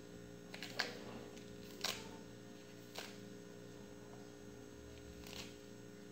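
A table knife cutting pumpkin flowers held in the hand, heard as four faint, short clicks spread over a few seconds, over a steady electrical hum.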